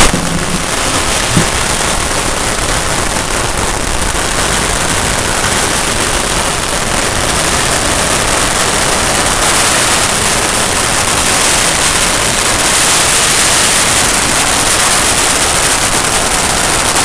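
A long string of firecrackers going off, a continuous dense crackle of rapid bangs that starts suddenly at the very beginning.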